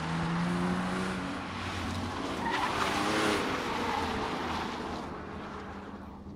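BMW E46 330Ci's straight-six engine running hard around the track, its pitch rising and falling, with a loud burst of tyre squeal about halfway through.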